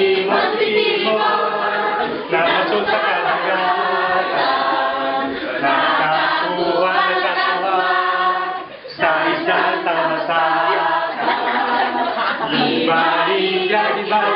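A class of high-school students singing together unaccompanied, with a brief break in the singing about nine seconds in.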